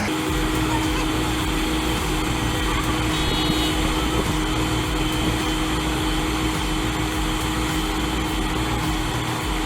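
Diesel engine of heavy earthmoving machinery running steadily, with a low pulsing rumble and a constant whine.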